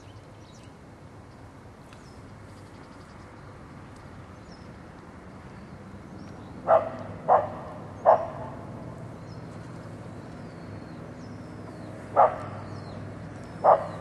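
A dog barking: three short barks in quick succession about halfway through, then two more near the end.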